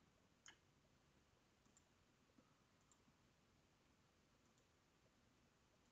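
Near silence with a few faint computer-mouse clicks, the clearest about half a second in.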